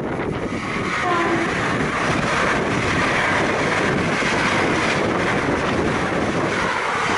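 Hitachi Class 802 intercity train passing at speed without stopping: a loud, steady rush of wheels on rail and moving air as the coaches go by close at hand.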